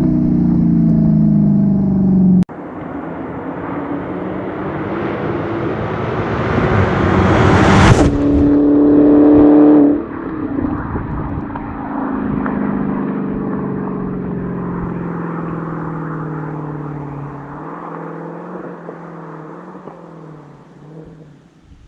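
Supercharged Hemi V8 of a Dodge Challenger SRT Hellcat on its stock exhaust. The engine note falls, then breaks off suddenly. The car then comes on louder and louder to a loud pass about eight seconds in, holds a steady note briefly, and fades away with a slowly falling pitch.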